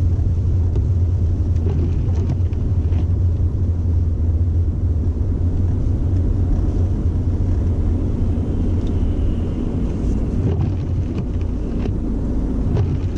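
A car's engine and tyres heard from inside the cabin while it is driven on snow-covered roads: a steady low rumble, with a few faint clicks near the end.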